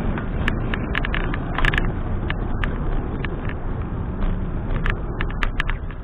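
Road bike rolling on a paved trail: steady wind buffeting on a handlebar-mounted camera's microphone and tyre rumble, with scattered sharp clicks and rattles.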